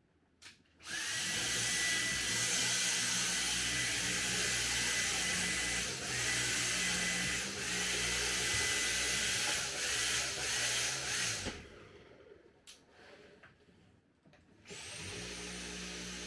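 Stick vacuum cleaner running. Its motor whine spins up about a second in and runs for about ten seconds with a few brief dips, then cuts off. The vacuum starts up again near the end.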